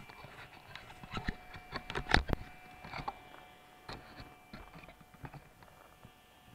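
BRS-116 wood-burning camp stove with its electric blower fan: a faint steady fan whine under irregular sharp crackles and crunches, the loudest about two seconds in.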